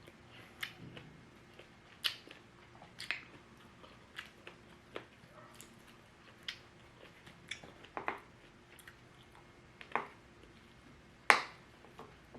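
Close-miked chewing: irregular sharp crunches and wet mouth clicks as food is bitten and chewed, with one loud crunch near the end.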